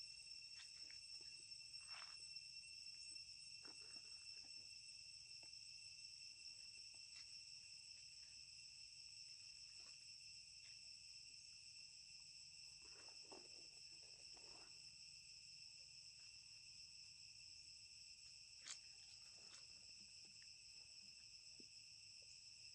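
Faint steady chorus of insects trilling, a continuous high-pitched drone, with a few faint clicks and rustles.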